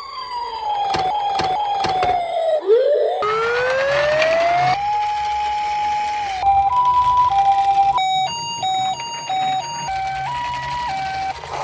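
A string of emergency-vehicle siren sounds. A wail falls in pitch with a few sharp clicks, then about three seconds in a wail rises and holds steady. About six and a half seconds in comes the two-tone high-low "pee-po" of a Japanese ambulance siren, and from about eight seconds a quick run of stepped electronic tones.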